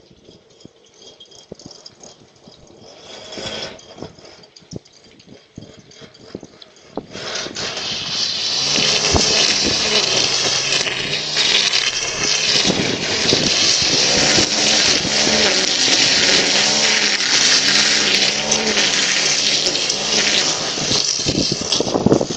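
Leaf blower starting up about seven seconds in and then running loud and steadily, its pitch rising and falling as the throttle changes.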